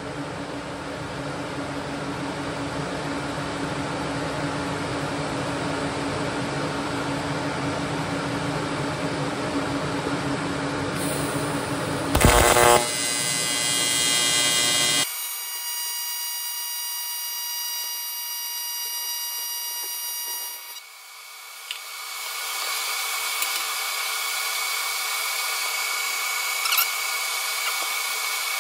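AC TIG welding arc on aluminium from a PrimeWeld inverter set to 120 Hz, buzzing steadily. About twelve seconds in there is a brief, louder crackle. From about fifteen seconds the low part of the buzz drops away, leaving a thinner, higher whine.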